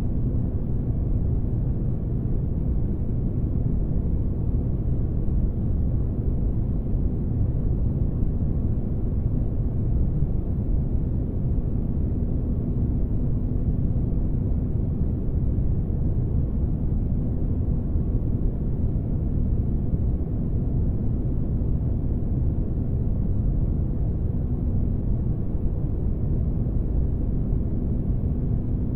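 Spaceship ambience noise: a steady, deep rumble with a faint steady hum on top, unchanging throughout.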